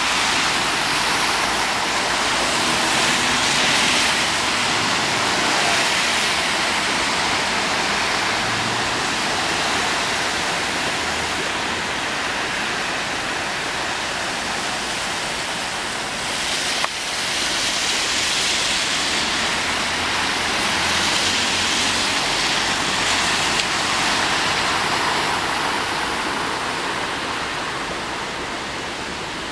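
Steady rushing of floodwater, swelling and easing a little in strength, with one short click about halfway through.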